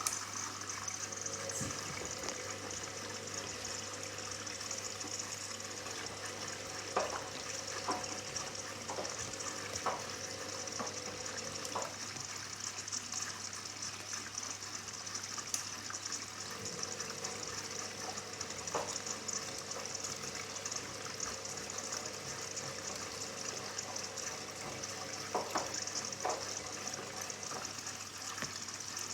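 Hoover Dynamic Next washing machine taking in water: a steady rush of water into the drum over a low steady hum, with a few faint knocks.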